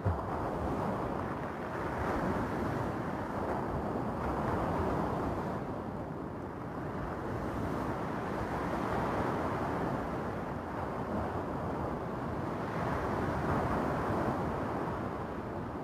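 Surf breaking and washing over a cobble beach, the rush of the waves swelling and easing every few seconds.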